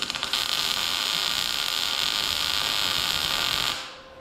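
MIG welder laying a tack weld: a few sharp clicks as the arc strikes, then a steady hiss for about three and a half seconds that stops near the end.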